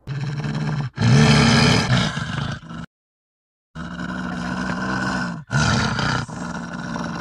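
Wolf growling in several long, rough, low growls, the loudest one about a second in; the sound cuts out completely for about a second near the middle, then the growling picks up again.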